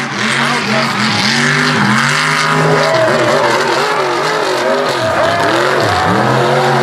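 Mega mud truck engine revving hard, its pitch surging up and down about twice a second as the throttle is worked.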